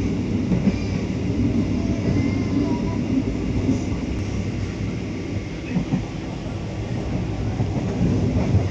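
Passenger train running along the track, heard from inside a coach: a steady low running noise of wheels on rails.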